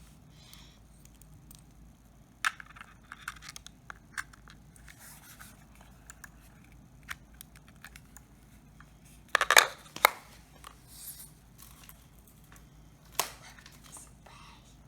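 Hands handling the packaging of a power bank being unboxed: scattered rustles, scrapes and small clicks. There is a loud cluster of sharp handling sounds about nine to ten seconds in, and a single sharp click about thirteen seconds in.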